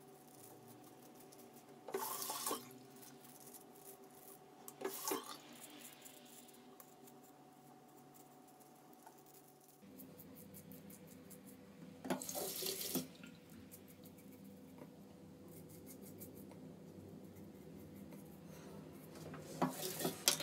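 Bathroom sink tap water splashing in four short bursts as a razor is rinsed, the last as the shaver bends to the basin near the end. Between the splashes, faint scratching of the razor blade through lathered stubble.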